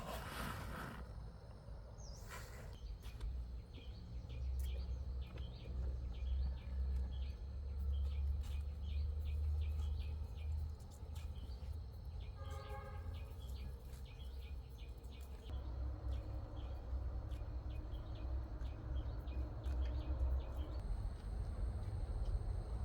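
Rural outdoor ambience: many small bird chirps over a steady low rumble, with one short pitched animal call about twelve seconds in.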